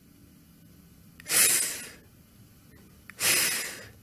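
A woman sounding the /f/ phoneme on its own: two drawn-out 'fff' hisses of breath forced between the lower lip and upper teeth. The first comes about a second in, the second about three seconds in.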